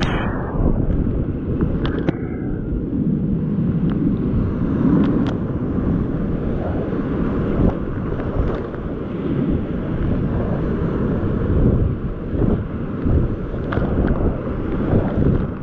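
Loud rushing whitewater of a big-volume river rapid, heard from inside the rapid with water and wind buffeting the microphone, and short splashes throughout.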